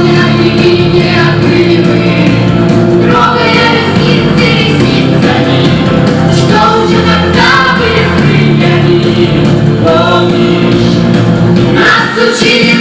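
A group of voices singing a song together in chorus over instrumental accompaniment.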